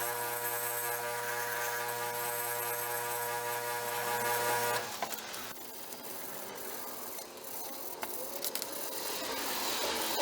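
Electric motor spinning a 180-grit fiber abrasive wheel, a steady hum that cuts off abruptly about halfway through, followed by quieter handling noise with scattered clicks.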